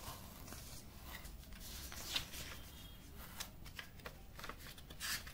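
Bubble wrap and packaging rustling and crinkling in a run of short, irregular crackles as hands rummage through a cardboard box, with one sharper crackle about two seconds in.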